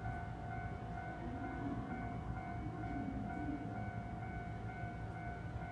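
Steady electrical whine in several held high tones, one of them pulsing on and off, over a low rumble. The middle tone stops shortly before the end.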